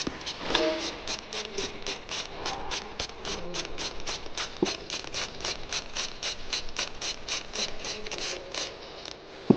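A ratchet mechanism clicking steadily, about four clicks a second, stopping shortly before the end.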